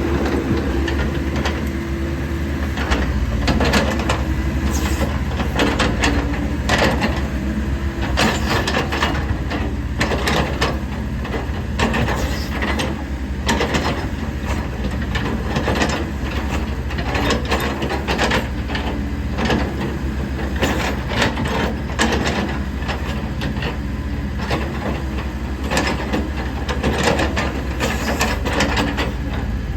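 Komatsu PC70 excavator's diesel engine running steadily, with frequent irregular metallic clanks and knocks from the working machine.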